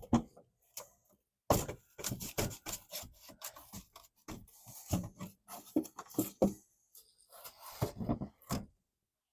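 An irregular run of short scrapes, rubs and knocks, with things being shifted and handled, starting about a second and a half in and stopping shortly before the end.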